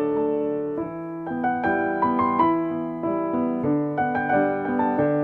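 Soft piano music: gentle arpeggiated notes over sustained chords.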